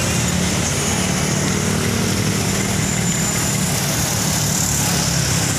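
Passenger bus engine idling steadily alongside, a constant low hum over the general noise of road traffic.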